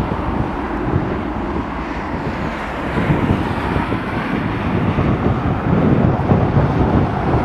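Bombardier CRJ-900LR's two rear-mounted General Electric CF34 turbofans at takeoff thrust during the takeoff roll: a steady jet engine rumble that grows louder about three seconds in.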